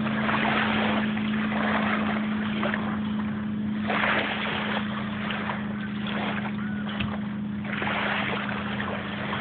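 Steady low drone of a distant motorboat engine as the boat cruises away, under swells of rushing noise that come about every four seconds.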